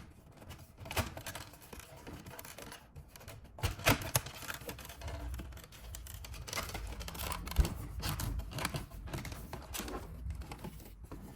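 Plastic dashboard trim being handled and fitted, with scattered clicks and scraping and a few sharper snaps.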